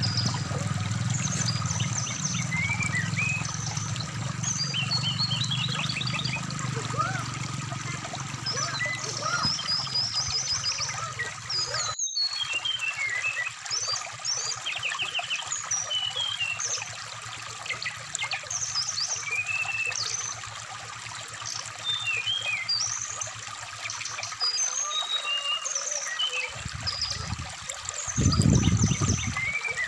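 Brown-chested jungle flycatcher song, quick varied chirps and trills, over the steady trickle of a shallow stream. The sound cuts out for an instant about twelve seconds in, and a loud low rumble comes near the end.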